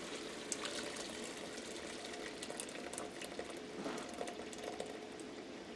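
Shrimp stock pouring in a thin stream through a mesh strainer into a pot of simmering tomato gravy: a soft, steady splashing with scattered small pops.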